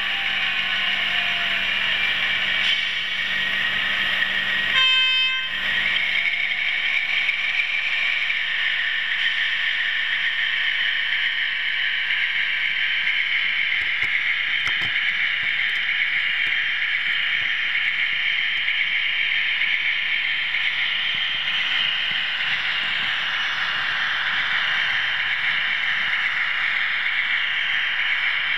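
OO-gauge model train running along the track with a steady rolling and motor noise. About five seconds in, a model diesel locomotive's DCC sound decoder gives a short horn toot.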